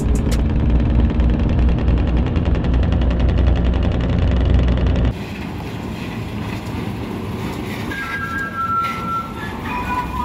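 Open-piped truck diesel engine running loud and steady with a fast, even firing pulse, cutting off suddenly about five seconds in. Then a quieter, rougher Mitsubishi Fuso truck diesel engine running as the truck moves off, with a few short high tones near the end.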